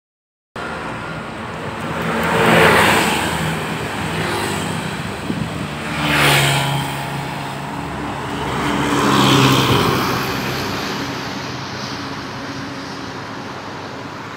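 Road traffic passing close by: three vehicles go past in turn, each one's engine and tyre noise swelling and fading, over a steady engine hum.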